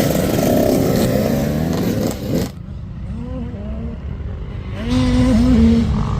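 85cc two-stroke dirt bike engines revving, the pitch rising and falling as the throttle opens and closes. The sound changes abruptly about two and a half seconds in to a fainter bike, which grows louder again near the end.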